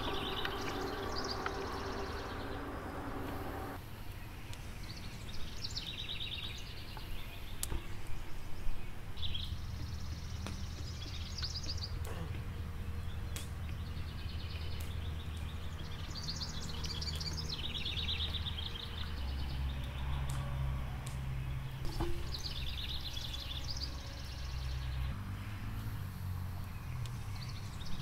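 Songbirds singing short, rapid trilling phrases every few seconds over a low steady hum, with a few sharp knocks. A pitched buzzing sound in the first few seconds cuts off suddenly.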